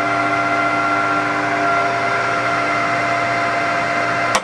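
Kingston HJ1100 gear-head lathe running steadily at 950 RPM with its power cross feed engaged, a constant whine of the 7.5 hp drive and headstock gears. Near the end a sharp click, like a feed lever being thrown, and the running gets a little quieter.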